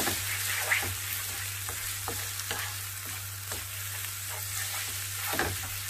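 Egg and chopped vegetables sizzling in a nonstick frying pan while a wooden spatula stirs them, with a steady hiss broken by irregular light scrapes and taps of the spatula against the pan.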